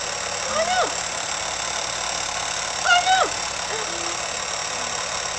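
Steady hiss with two short, high-pitched vocal sounds from a person's voice, each rising then falling in pitch, about half a second in and about three seconds in.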